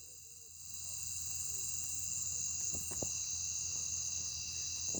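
Steady chorus of crickets trilling, with a couple of faint taps about three seconds in.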